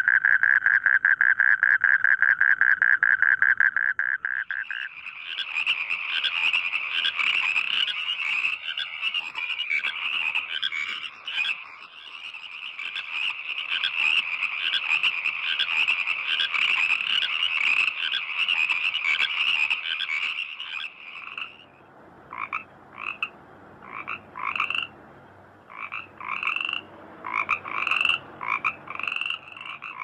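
Frogs calling in a chorus. It opens with a fast, even trill, which gives way after about four seconds to a denser, higher pulsing chorus. From about two-thirds of the way in, this breaks into separate short croaks that come closer and closer together.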